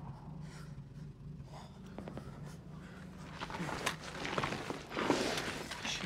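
A low steady hum under a quiet lull in a combat film's soundtrack. About halfway in come irregular scuffling and rustling of a soldier's gear, with heavy breathing.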